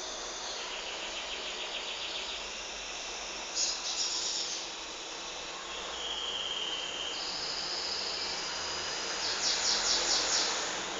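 High-pitched insect trilling and chirping: several separate calls a second or two long, some pulsed in a fast even trill and some held at one steady pitch, over a steady hiss.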